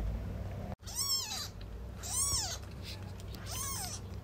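Newborn kitten mewing three times, about a second apart, starting about a second in: short high cries that rise and then fall in pitch.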